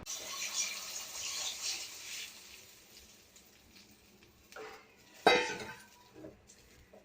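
Tamarind water poured into a hot pan of sautéed onion and tomato, hissing for about two seconds and then fading. About five seconds in there are a couple of sharp metal clinks and knocks against the pan, the second the loudest.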